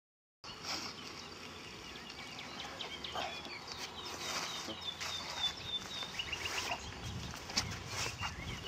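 Birds chirping and trilling, several short repeated calls overlapping, starting abruptly about half a second in, with some low rumbling near the end.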